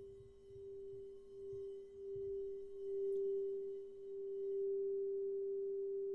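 Clear crystal singing bowl sung by circling a wand around its rim: one steady pure tone that swells and ebbs about once a second and grows louder over the first few seconds.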